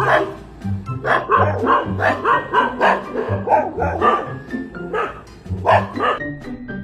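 Two dogs barking in a rapid series, about two or three barks a second with a short lull past the middle, over background music.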